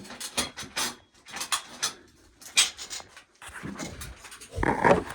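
Dried ear corn being shelled: irregular sharp clicks and crackles of kernels snapping off the cob and rattling, with a louder burst of noise near the end.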